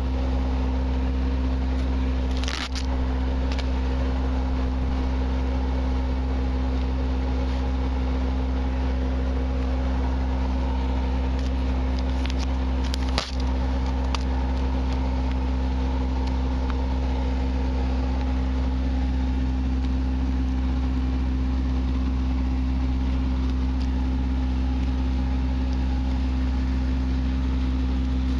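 An engine running steadily at a constant speed, a low droning hum. Two brief knocks cut across it, one about two and a half seconds in and one about thirteen seconds in.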